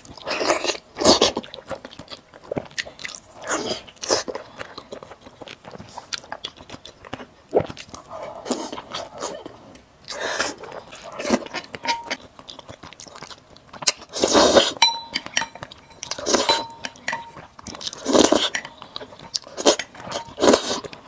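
Close-up eating sounds: wet biting and chewing of soft grilled eel, with a few louder bites and slurps, the last one near the end as spicy noodles are sucked up.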